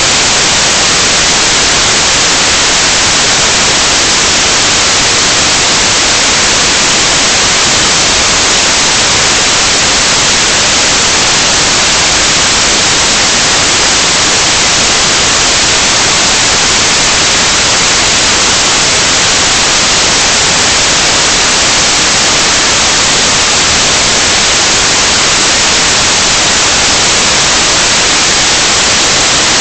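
Loud, steady white noise: an even hiss with no tones or events, cut off above about 9 kHz.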